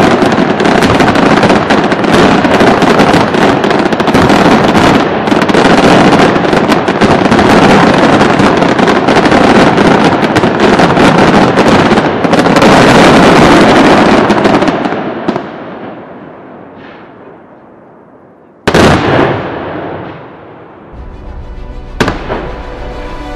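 Dense, continuous fireworks barrage: aerial shells bursting in rapid, overlapping bangs and crackles, the closing barrage of the show. It dies away about 15 seconds in, one last loud bang follows a few seconds later, and music starts near the end.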